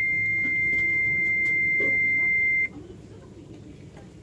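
Boat engine instrument panel's alarm buzzer sounding one steady high-pitched tone, which cuts off suddenly about two and a half seconds in, over a faint low hum.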